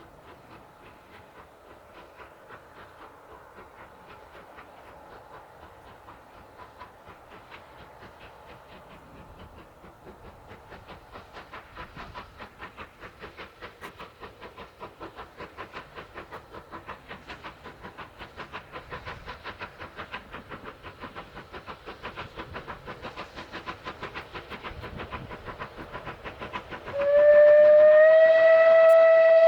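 A steam locomotive working a train, its rapid, even exhaust beats growing steadily louder as it approaches. Near the end the loco's steam whistle sounds loudly in one long held blast, rising slightly in pitch as it opens.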